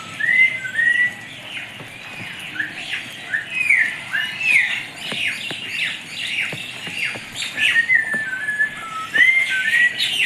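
Many birds calling at once: overlapping whistled notes and short, quickly falling chirps and squawks, one after another.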